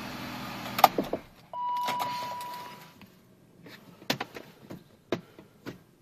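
BMW 525i's M54 straight-six idling, now running on two newly replaced ignition coils that cured a misfire on cylinders 2 and 4; a sharp click comes just under a second in and the engine hum dies away. About a second and a half in, a single dashboard chime tone sounds and fades, followed by a few light clicks and rattles.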